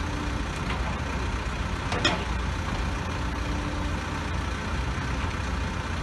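Diesel engine of a Caterpillar 416E backhoe loader running steadily at rest, with a single sharp knock about two seconds in.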